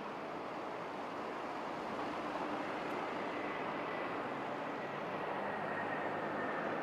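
Jet airliner engines running, a steady rush of noise with a faint high whine that slowly falls in pitch.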